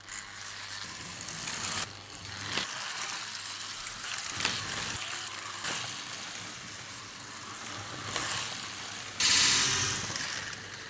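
Mini Cooper slot cars running on a plastic track: a steady high hiss and buzz from their small electric motors and guide braids, with sharp clicks now and then. A louder, brighter clatter about nine seconds in, as a car comes off the track and lands on its side.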